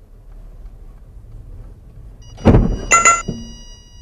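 Car collision: a loud impact about two and a half seconds in, then a second sharp hit with a metallic ring half a second later. A steady high-pitched electronic tone sounds alongside from just before the impact.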